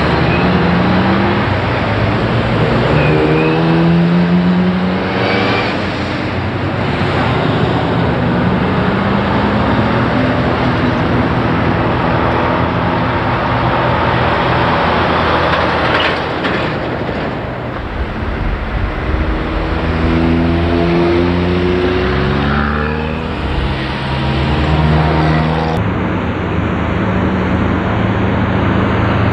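Road traffic with cars and heavy trucks passing. Truck engines climb in pitch, drop back and climb again as they pull away through the gears. The background changes abruptly near the end.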